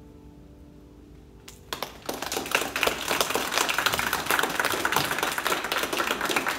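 The last grand piano chord fades out, then a small audience breaks into applause about two seconds in, a dense patter of clapping that continues.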